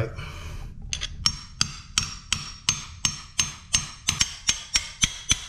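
Hammer blows, about three or four a second, starting about a second in, each with a short ring: knocking out a kerfed segment of an old PVC toilet flange hub glued inside a 4-inch PVC drain pipe.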